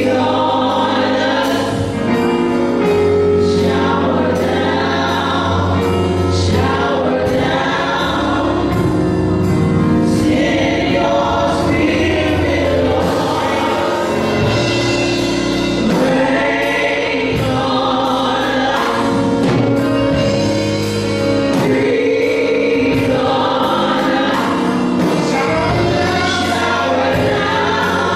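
Gospel praise team of women singing together into microphones, backed by a live band with drum kit and keyboard keeping a steady beat.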